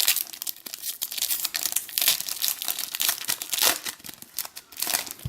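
Crinkling and tearing of a foil trading-card pack wrapper being torn open and crumpled, a dense run of irregular crackles that stops near the end.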